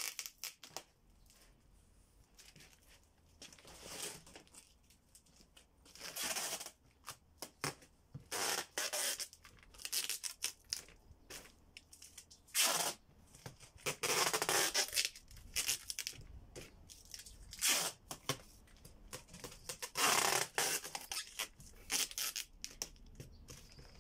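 Packing tape ripped off the roll and pressed onto a cardboard box, and a knife sawing through the box's cardboard to cut an opening, in a long run of irregular ripping and scraping noises, some drawn out and some short.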